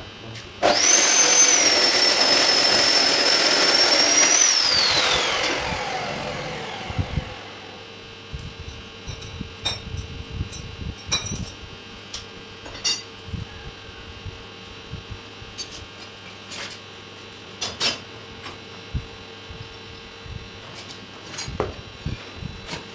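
A high-speed electric power tool runs with a steady high whine for about four seconds after starting suddenly, then is switched off, and its whine falls away as it spins down. Scattered light clicks and taps of metal follow.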